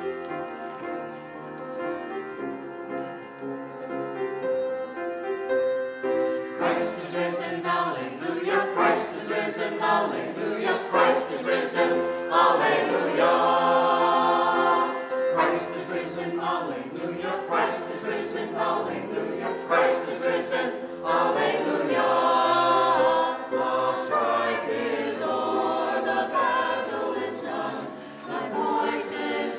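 Mixed church choir singing an anthem in parts, entering about six seconds in after a short keyboard introduction.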